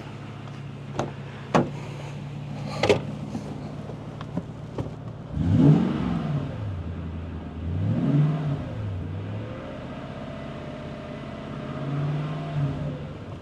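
Toyota Tundra pickup engine running as the donor vehicle in a jump start, idling steadily with a few sharp knocks over it, then revved three times, about five seconds in, about eight seconds in and near the end, to feed more charge to a dead battery.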